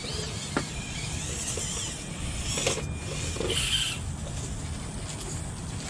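Micro RC rock crawler's small electric motor and gears whining as it climbs over rocks, rising and falling with the throttle and loudest about three to four seconds in, with a few light knocks of the truck against stone.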